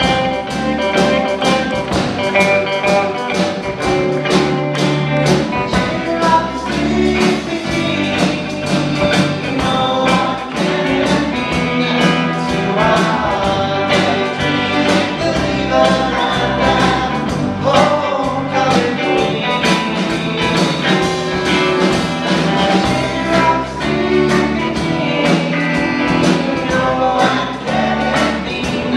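Live rock-and-roll band playing a song: electric guitars and bass over a drum kit keeping a steady beat, with a man singing lead.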